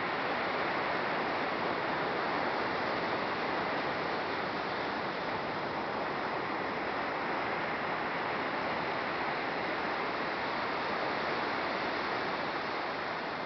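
Steady rushing noise of surf breaking on a sandy beach, mixed with wind, with no single wave crash standing out.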